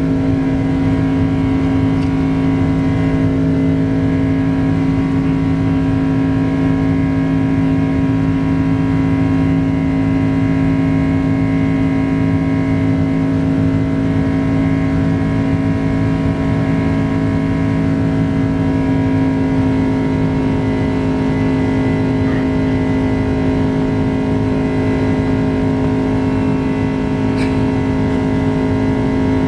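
Boeing 767-300's GE CF6 turbofan engines running at takeoff power, heard inside the passenger cabin as a loud, steady drone with several steady tones over a rushing noise.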